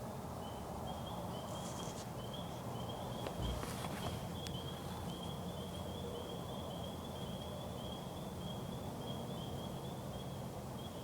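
An animal's high, thin chirping call, repeated steadily at about three short notes a second, over a low steady hum, with a few faint clicks about four seconds in.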